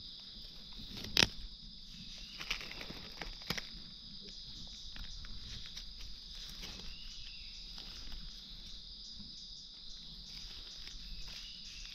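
Steady high-pitched chorus of insects. A sharp knock comes about a second in, and a few fainter rustles follow.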